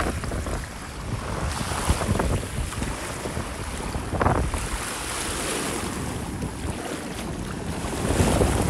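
Wind buffeting the microphone over small waves lapping in a shallow sea lagoon, with louder washes of water about four seconds in and near the end.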